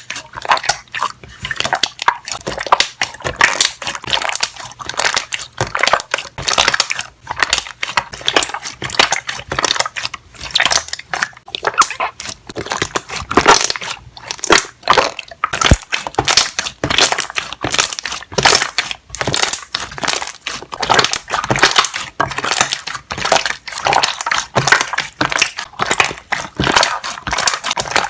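Slime being pressed and worked by hand, its trapped air bubbles popping in a dense, irregular run of small crackling pops with no let-up.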